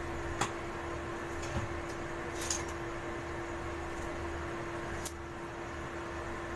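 Steady mechanical kitchen hum with one constant low tone. A few light clicks and knocks come over it as cooking oil is poured from a plastic bottle into an empty steel wok, with a brief rustle about two and a half seconds in.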